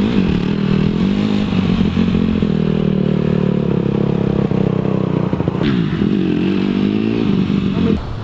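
Dirt bike engine revving as the rider tries to lift the front wheel for a wheelie: the engine note dips and climbs, holds steady, then swoops down and back up before it drops away near the end.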